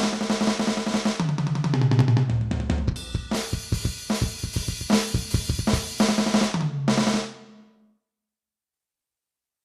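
Aroma TDX-16S electronic drum kit played in a sound check: a beat of bass drum, snare and cymbals, with a tom fill stepping down in pitch about one to three seconds in. The playing stops about seven seconds in, the last hit dies away and the sound cuts to silence.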